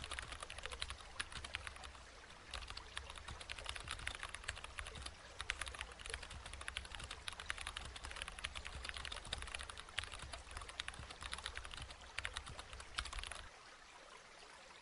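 Fast computer keyboard typing, a dense run of irregular key clicks that stops about thirteen and a half seconds in.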